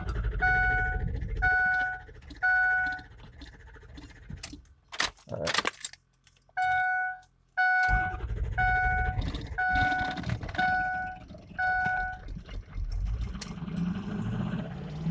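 Ford diesel tow truck being cranked over with its warning chime beeping about once a second: two spells of cranking with a few clicks in the pause between, then near the end the engine catches and runs. The engine had stalled from a shorted injector that acts up when hot.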